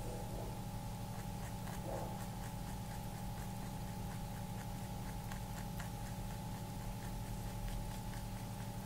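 A rabbit chewing: faint, quick clicks about three a second, over a steady electrical hum.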